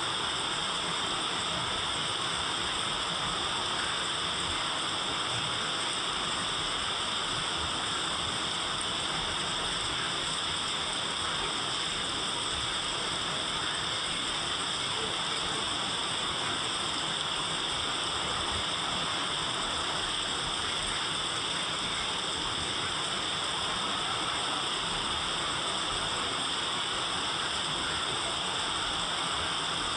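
Steady rain falling, an even hiss that stays the same throughout.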